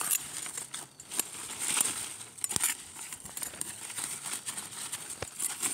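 Dry leaf litter and soil rustling and crackling as the forest floor is searched and raked through, with scattered sharp clicks throughout.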